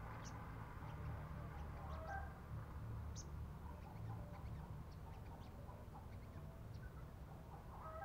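Small birds chirping around a bird trap: scattered short, high chirps and a few brief whistled notes over a steady low rumble.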